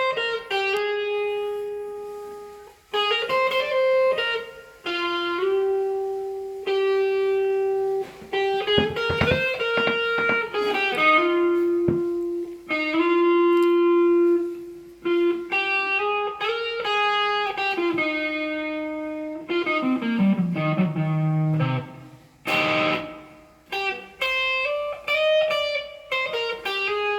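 Solo electric guitar playing a slow, melodic lead line of long sustained single notes, with slides and bends between them and a long descending slide about twenty seconds in. About twenty-two seconds in there is a short, noisy scrape across the strings.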